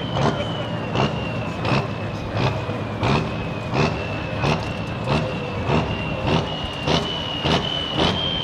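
Hot farm pulling tractor's turbocharged diesel engine idling, with a high turbo whine that sags slowly and then climbs again. A regular lumpy pulse comes through about every 0.7 seconds.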